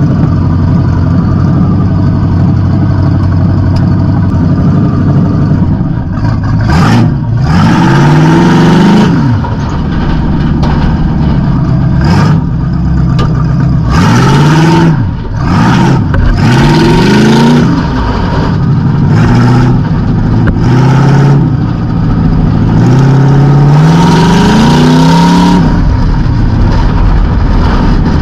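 Demolition derby car's engine, exhausting through open stacks in the hood, loud from inside the stripped cab: a steady idle at first, then revved up and back down about five times as the car moves off across the dirt.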